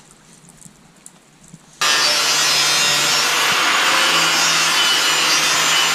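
A power tool starts cutting abruptly about two seconds in and runs steadily, a loud rasping noise over a constant low hum.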